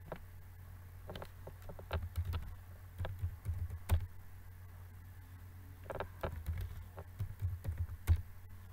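Typing on a computer keyboard: a password entered in several short runs of quick key clicks, with pauses between the runs.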